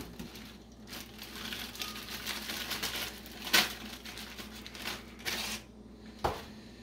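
Plastic freezer bag crinkling and rustling as frozen diced green peppers are shaken out of it, with a few sharp knocks, the loudest about three and a half seconds in.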